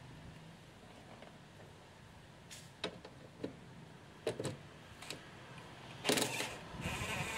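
A few light clicks and knocks of tool on metal, then about six seconds in a short burst from an 18 V brushless DeWalt cordless impact driver backing out the tail-light's lower 10 mm bolt, with a further run of it near the end.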